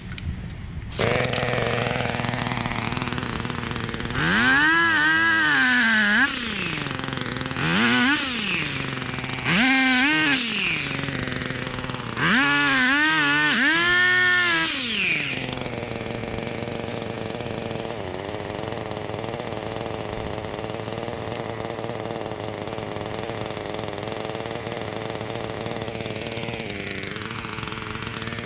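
Engine revving up and falling back four times in quick surges, then running steadily at a lower speed.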